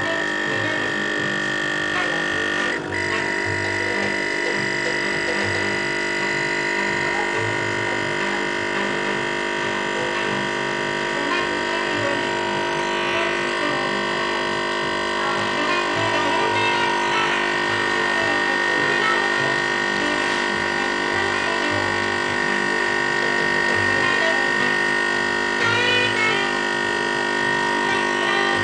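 Sunbeam EM6910 espresso machine's vibratory pump running with a steady electric hum as it pushes water through the coffee while a shot is pulled.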